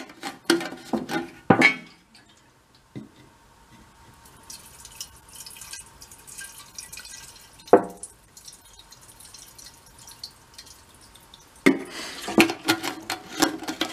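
Lacquer thinner poured from a metal can into a small steel mini-bike fuel tank, a faint trickle and drip, with clinks as the can is handled at the start, a single knock about halfway, and louder clattering near the end as the can comes away.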